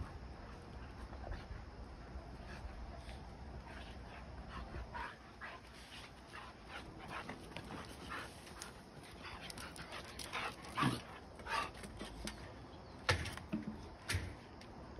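Huskies playing together, giving short yips, whines and barks in quick irregular bursts. The bursts come more often from about five seconds in, and the loudest few fall near the end.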